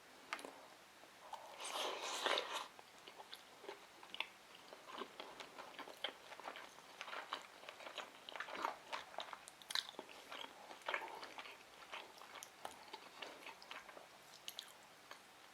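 Close-miked chewing of a sushi roll: wet mouth smacks and small irregular clicks, with a louder stretch about two seconds in.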